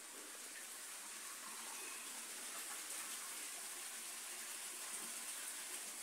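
Steady rush of running water, growing a little louder over the first few seconds and then holding.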